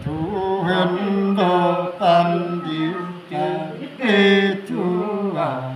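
Unaccompanied male singing: a slow, chant-like folk song with long held notes that slide from one pitch to the next, broken by short breaths.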